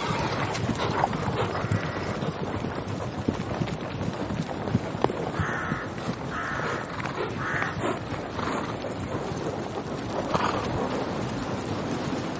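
Steady rush of splashing and spraying water around a ride boat, with a few short calls about halfway through.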